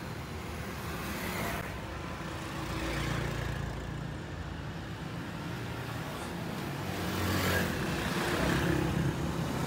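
Street traffic: motorcycles and auto-rickshaws driving past with their small engines running. The loudest is an auto-rickshaw passing close near the end.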